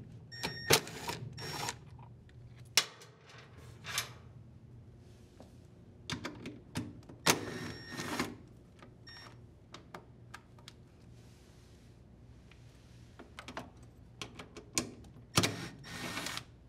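Cordless impact driver running in three short bursts, backing out the screws on a washer's plastic drive-belt cover. Sharp clicks and knocks in between, from handling the socket, screws and cover.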